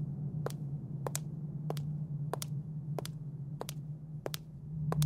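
Evenly paced footsteps, each a short sharp click, about three every two seconds, over a steady low hum.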